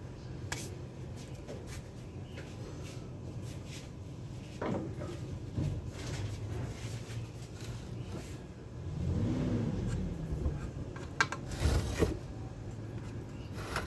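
Scattered knocks and clacks of objects being handled and set down, over a steady low hum, with a brief rising-and-falling tone about nine seconds in and a quick run of sharp clicks a little later.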